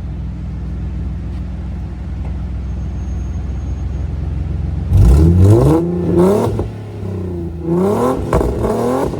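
Tuned Nissan 370Z's 3.7-litre V6, straight through resonated test pipes in place of the catalytic converters, idling steadily, then revved hard about five seconds in with a rising pitch and sharp pops, easing off, then revved again near the end.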